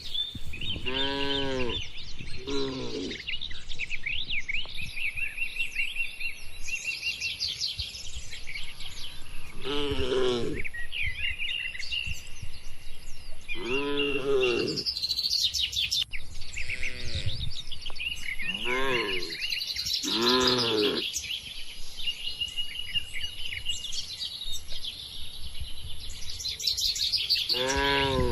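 Cattle lowing in short, arched calls every few seconds over steady chirping birdsong. A thin, steady high-pitched whine joins about five seconds in.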